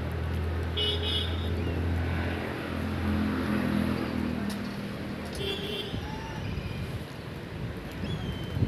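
A motor vehicle's engine running and passing on the road, its hum strongest in the first few seconds and fading away by about six seconds in. A couple of short high beeps sound over it, about a second in and again near the middle.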